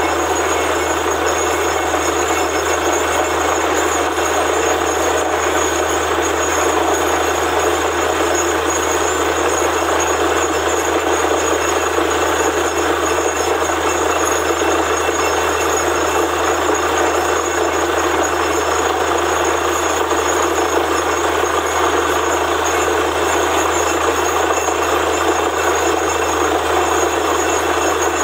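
Borewell drilling rig running steadily and loudly, a dense mechanical rumble with a constant high whine over it.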